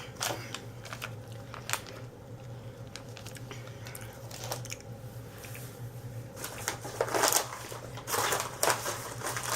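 Snack packaging being handled: a few light clicks and taps, then a longer stretch of crinkling and rustling wrappers in the last few seconds.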